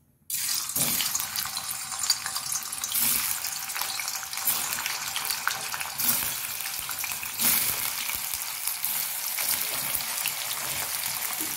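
Paneer cubes sizzling and crackling in hot vegetable oil as they are dropped into the pan by hand. The sizzle starts suddenly as the first pieces hit the oil and flares up a few times as more pieces go in.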